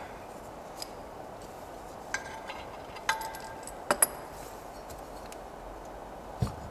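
Metal engine parts and hand tools being handled on a workbench: scattered light metallic clinks and taps, one ringing briefly about three seconds in, a pair of sharp clicks about four seconds in, and a duller knock near the end.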